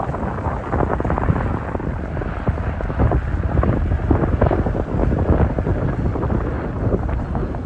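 Strong wind buffeting the microphone: a loud, rumbling rush with irregular crackling gusts.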